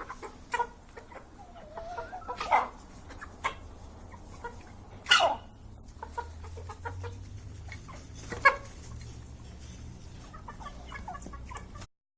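Domestic chickens clucking, with a few short sharp sounds standing out: the loudest about five seconds in, another about eight and a half seconds in.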